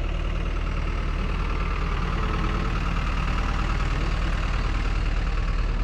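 Engine of a trackless road train, a locomotive-styled tractor towing open passenger carriages, running with a steady low hum as it drives slowly past close by.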